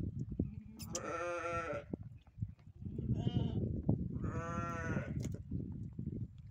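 A young goat bleating three times: a call of about a second, a short one, then another of about a second, over a steady low rumble.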